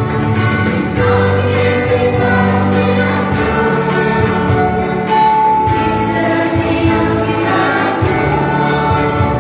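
Music: a choir singing, with long held notes.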